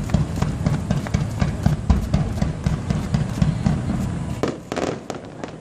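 Fireworks barrage: many booms and cracks going off in rapid, irregular succession over a deep rumble.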